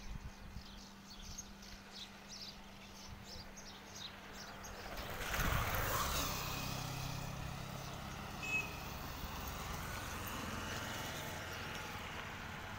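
A motorcycle engine approaches and passes on a road bridge, growing louder about five seconds in, and its low engine hum runs on for several seconds afterwards.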